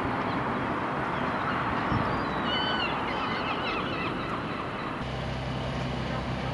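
Gulls calling, a few short curved cries in the middle, over steady outdoor background noise; a steady low hum comes in about five seconds in.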